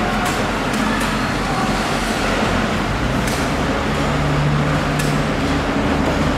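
Steady, loud background din of a working fish hall, with a low motor hum that grows stronger about four seconds in and a few faint clicks.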